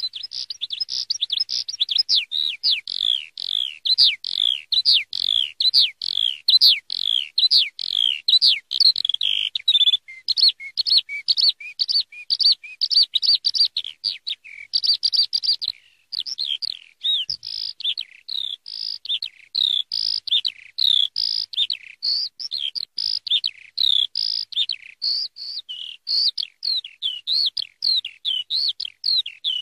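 Eurasian skylark singing: a long, unbroken stream of rapid, high chirps and trills, with a short break about sixteen seconds in.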